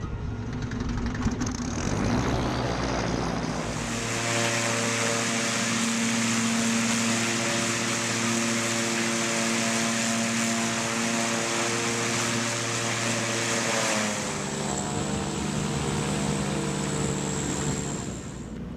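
Propeller-driven military drone's engine running at a steady pitch. The note shifts slightly about fourteen seconds in, and a thin high whine joins it.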